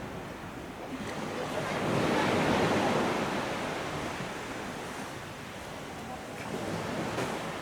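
Sea surf washing on a beach, with one wave swelling loudest about two to three seconds in and then easing off.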